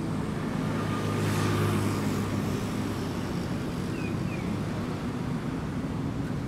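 Road traffic: a steady engine hum with a vehicle passing, loudest about a second and a half in. About four seconds in there are two short high chirps, likely from a bird.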